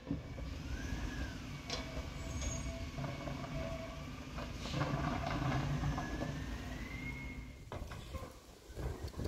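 Rear-loading garbage truck running with a steady low engine rumble and a thin high whine that slowly rises and falls, with several sharp knocks of carts and yard waste being handled at the hopper.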